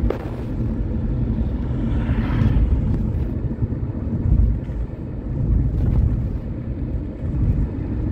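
Car driving on a road heard from inside the cabin: a steady, low engine and tyre rumble, with a brief rise in hiss about two seconds in.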